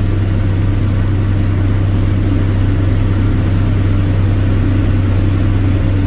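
Farm tractor engine running at a steady speed as it pulls a hay baler: an even, low drone that holds constant.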